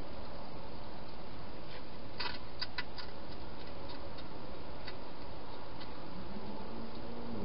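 Steady background hiss with a quick run of sharp clicks a little over two seconds in, a few faint ticks, and a low steady buzz starting near the end.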